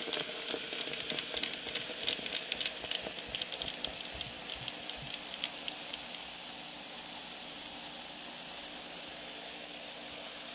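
Cold Sprite poured from a plastic bottle into a blender jar over crushed ice pops, the soda fizzing and crackling as it foams. After about five seconds the crackle gives way to a steadier fizzing hiss.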